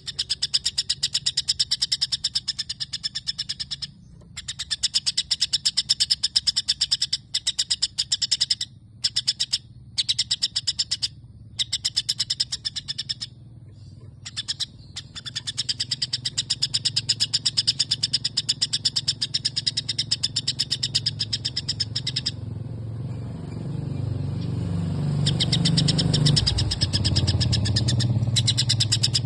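White-rumped shama (murai batu) singing long, rapid runs of evenly repeated sparrow-like chirps, broken by short pauses. Near the end the chirping breaks off for a few seconds while a low rumble swells and fades, then resumes.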